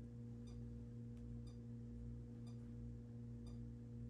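Faint steady hum of the GE WL400 150 W high-pressure sodium wallpack's magnetic ballast as the lamp runs, still warming up toward full brightness. A faint tick comes about once a second.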